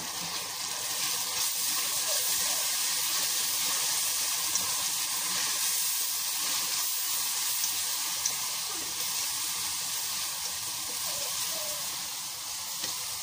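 Onion, ginger and garlic masala sizzling in hot oil in a steel pot as freshly added chili powder, turmeric and chili flakes are fried in, stirred with a slotted spatula. A steady hiss with a few small crackles, growing louder about a second in and easing slowly.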